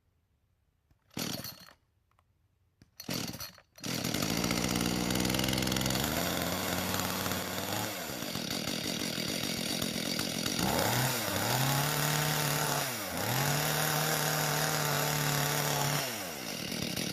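Echo two-stroke chainsaw being pull-started: two short pulls, then the engine catches about four seconds in and keeps running. Its speed sags and picks back up a few times. The saw has just had its carburetor rebuilt and its fuel lines changed.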